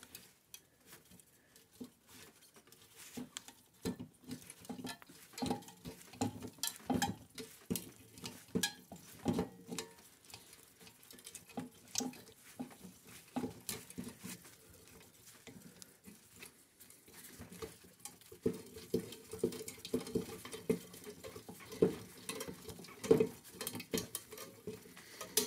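Screwdriver scraping and clicking against metal inside an opened refrigerator compressor while its internal coil springs are worked loose: irregular small metallic taps and scrapes, busier in the last third.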